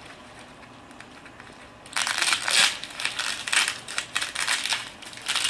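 Packaging being handled and unwrapped, crinkling and rustling in irregular bursts that start about two seconds in after a quiet start.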